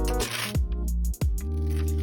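Background music: a track with held synth chords over a deep bass, punctuated by kick-drum hits.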